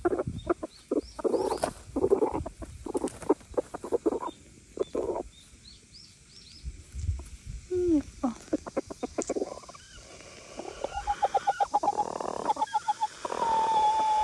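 Domestic hens clucking close by in short, scattered notes, with a quieter stretch midway. Near the end comes a quick run of clucks, then a long, steady drawn-out call.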